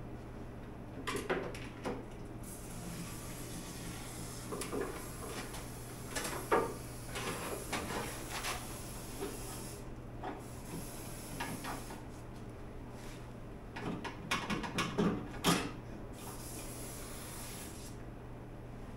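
Cavity wax being sprayed through a long extension hose into the car's body cavity: a steady hiss in two long sprays, broken briefly about ten seconds in, with scattered knocks and clatter from handling the hose and nozzle.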